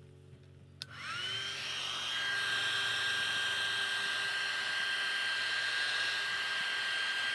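TRESemmé hand-held hair dryer switched on with a click about a second in; its motor whine rises and settles into a steady high whine over the rush of blown air.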